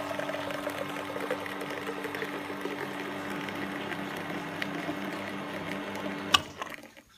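Bremer Viva bean-to-cup coffee machine brewing: its pump hums steadily while coffee streams from the twin spout into a cup. A little over six seconds in, a click and the hum and flow stop.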